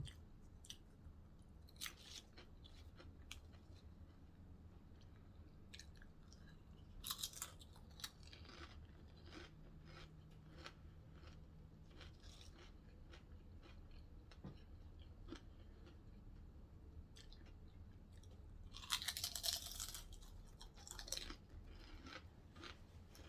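A person chewing and biting into a Subway sandwich, with soft wet mouth clicks and crunches. Bites come in small clusters, and about 19 seconds in there is a louder, longer crunching or rustling burst.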